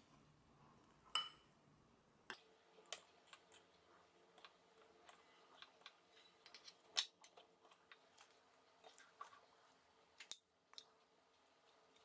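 Faint, irregular clinks and scrapes of a metal spoon against ceramic bowls, with one brief ringing tap about a second in.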